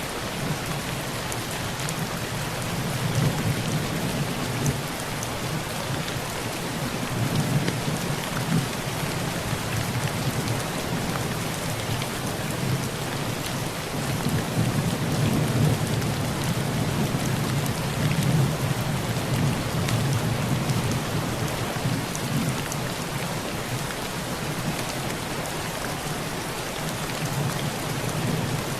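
Heavy rain drumming on a tin roof, a dense patter of drops, with low rolls of thunder swelling and fading several times.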